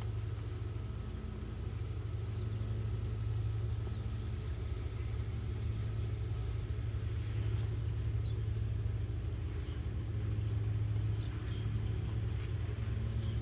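A steady low mechanical hum, like a motor running at a distance, holding an even pitch and level throughout.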